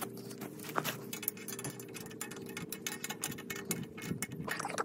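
Light, irregular metallic clicks and clinks from a metal antenna mounting bracket and its threaded U-bolts being handled on a metal mast pipe, over a steady low hum.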